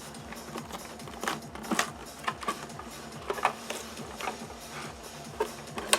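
Scattered light clicks and knocks of hand tools and plastic panels being handled during disassembly of a motorcycle's trunk and covers, over a steady low background.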